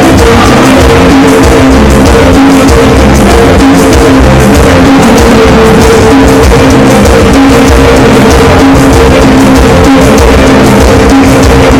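Loud amplified dance music from a mobile disco sound system, with a steady beat and distorted by the recording.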